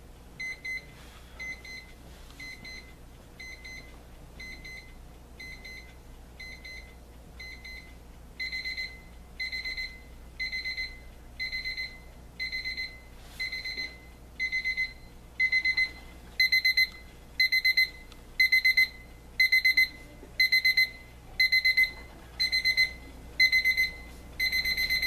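AcuRite 47311 travel alarm clock's alarm going off: short bursts of rapid high-pitched beeps repeating about once a second. The alarm escalates, its bursts growing louder and longer about a third of the way in and louder again past halfway.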